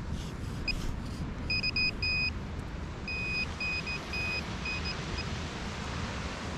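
Metal detector beeping on a metal target in the sand: short beeps at one steady pitch, some clipped and some held about half a second, in irregular groups. A steady low rumble runs underneath.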